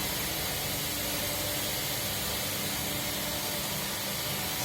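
Steady hiss and low hum of a running power cable extrusion line, with a few faint steady machine tones and no distinct knocks or changes.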